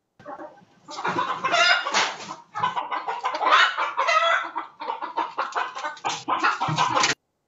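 Chickens clucking, coming over the video call's audio.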